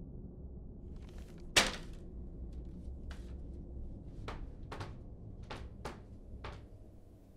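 A paper bag of groceries is set down on a hard floor with one sharp thunk about a second and a half in. Several lighter, irregular clicks follow, over a steady low hum.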